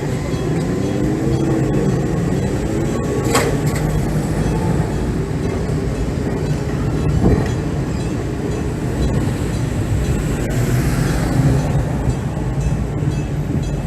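Enoden electric train running past at close range: a steady rumble of wheels and running gear, with a motor whine gliding up and down in the first few seconds. A sharp clack comes about three seconds in and another about seven seconds in.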